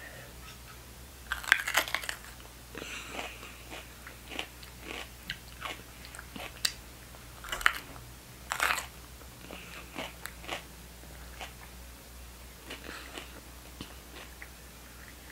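A raw jalapeño pepper being bitten and chewed: crisp crunches and wet mouth noises come in irregular, scattered bursts. The loudest come about a second and a half in and again about eight to nine seconds in.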